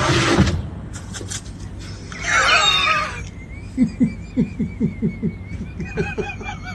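A dog making a run of short, low, rhythmic grunts or huffs, about three to four a second, with a thin, high, wavering whine over them. There is a short burst of noise at the start.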